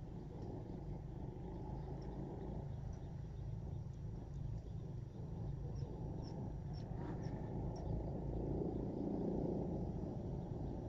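Outdoor ambience: a low, steady rumble with a few faint, short high chirps in the second half.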